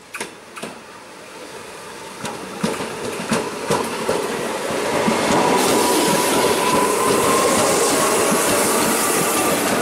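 Tokyu 8500-series electric multiple unit approaching and passing close by. Its wheels clack sharply over rail joints as it grows louder, then a loud steady rumble and hiss of wheels on rail runs as the cars go past, with a faint high tone over it.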